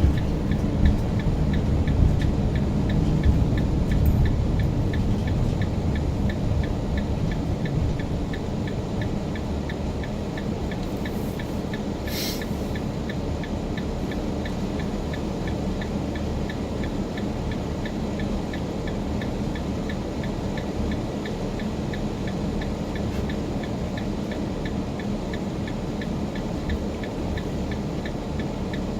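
Car driving: a steady low rumble of engine and road noise, a little louder in the first several seconds, with a faint, evenly spaced ticking throughout. A brief hiss comes about twelve seconds in.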